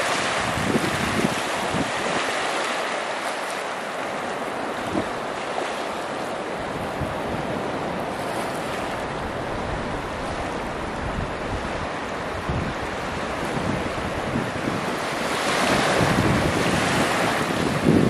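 Ocean surf washing on the shore, with wind buffeting the microphone. The wash swells louder near the end.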